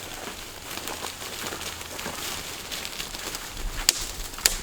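Brush and twigs crackling and snapping as undergrowth is cleared by hand, with two sharp snaps near the end.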